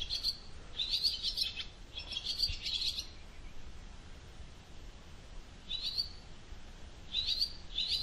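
Marsh warbler singing, imitating a barn swallow's twitter in short phrases of quick, high notes, with a pause of a couple of seconds in the middle.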